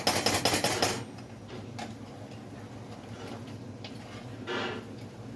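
Spoon clicking rapidly and evenly against a cooking pot for about the first second as macaroni and cheese is stirred, then a short single scrape near the end.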